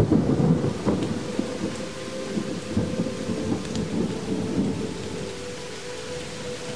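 Thunder rumbling over steady rain, set against a held musical tone. The rumble starts suddenly and dies away over about five seconds.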